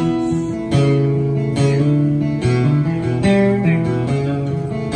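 Steel-string acoustic guitar strummed in a steady rhythm, with a strong stroke about once a second and the chords ringing between.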